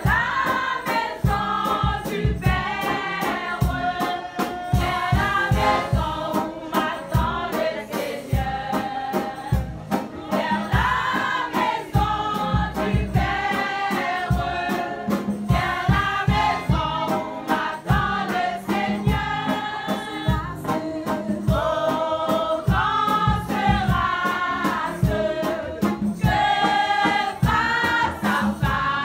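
Women's church choir singing a gospel song together, with a steady beat of sharp strikes under the voices.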